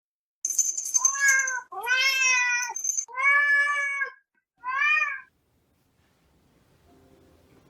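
Domestic cat meowing four times: three long drawn-out meows and a shorter fourth one.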